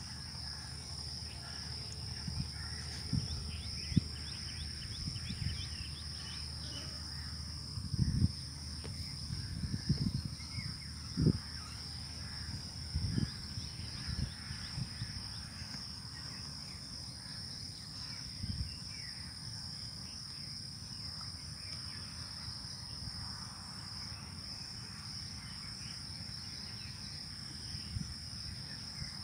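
Steady, shrill drone of an insect chorus at two high pitches, with a few dull low thumps scattered through it.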